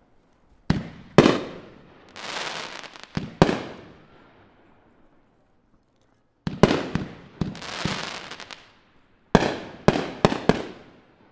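Brothers Pyrotechnics Baby Boomer firework going off: sharp bangs in three bunches, about a second in, from about six and a half seconds, and near the end, with spells of rushing, hissing noise between the bangs.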